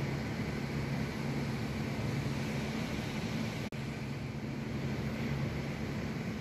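A steady low mechanical hum over an even rushing noise, cutting out for an instant a little past halfway.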